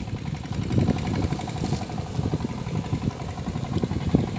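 Small boat engine running steadily with an even ticking beat, under irregular low rumble from wind on the microphone.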